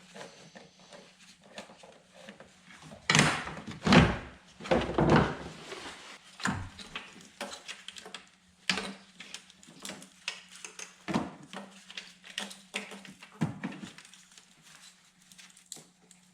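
Knocks, clunks and light rattles of parts and tools being handled in a car's engine bay, loudest in a cluster of heavy clunks about three to five seconds in, then scattered clicks, over a faint steady low hum.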